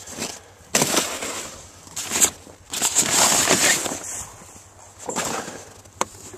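Nylon snowmobile cover rustling and crumpling in irregular bursts as it is pulled off and handled, with a sharp click near the end.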